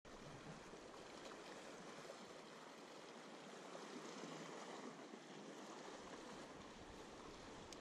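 Faint, steady wash of choppy sea water against shoreline rocks, with a single light click near the end.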